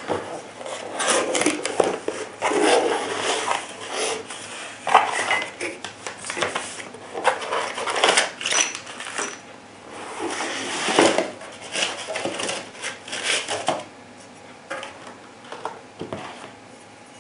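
Unboxing handling noise: a cardboard box opened and a foam-packed metal handguard rail and plastic-bagged parts lifted out, giving irregular rustling, scraping and light knocks. The handling is busy for most of the stretch and thins to a few clicks near the end.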